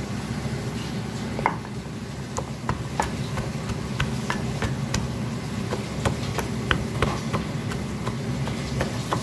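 Pestle pounding dry-roasted shallots, garlic and ginger in a wooden mortar to coarsely crush them: irregular knocks, about one or two a second, over a steady low hum.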